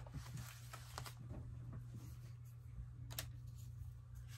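Paper and card being handled and pressed down on a journal page: light rustles and taps, with one sharper click about three seconds in.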